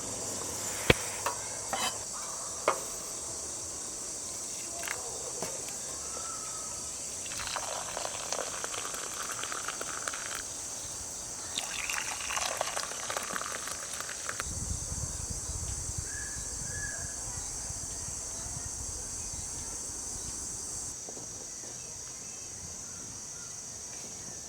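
Liquid being poured twice, a few seconds each, among a few light clicks and knocks. Insects chirp steadily throughout.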